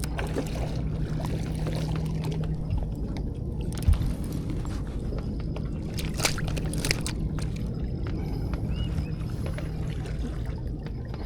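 Water sloshing and lapping over a steady low hum, with scattered small clicks and one sharp knock about four seconds in.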